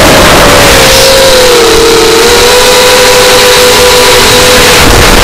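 FPV quadcopter's electric motors and propellers whining at a steady high pitch, heard loud through the onboard camera with a hiss of rushing air. The pitch dips slightly about two seconds in, then holds steady.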